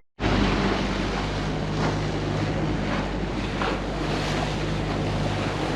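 Gulfstar 40 sailboat motoring through rough, turbulent seas: waves splashing and rushing along the hull and wind on the microphone, over the steady low hum of the boat's engine.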